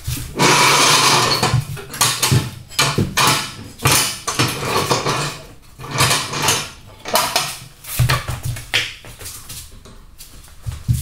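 Irregular metallic clanks and clatter of tools and steel front-suspension parts being handled as the wheel hubs are taken off a car's removed front crossmember.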